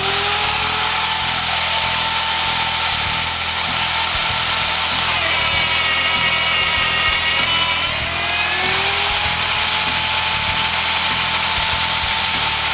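BDS AUTOMAB 350 magnetic drill's motor running with a steady whine as its annular cutter bores a 1 1/16 inch hole in steel. Its pitch sags for about three seconds midway as the motor bogs under the cutting load, then climbs back.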